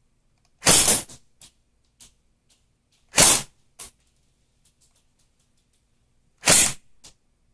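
Double Eagle M83 A2 electric airsoft gun firing three single shots on semi-automatic, a few seconds apart, each a short sharp burst followed by a faint click about half a second later.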